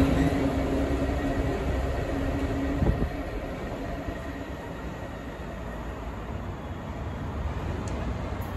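GBRf Class 66 diesel locomotive's two-stroke EMD V12 engine droning as it moves away, the drone fading over the first few seconds. A single knock comes about three seconds in, and a fainter rumble is left as it recedes.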